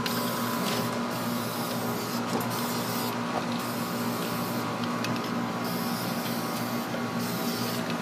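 Aerosol can of black enamel spray paint hissing in long bursts with a few short pauses, laying down a coat of paint. A steady low hum runs underneath.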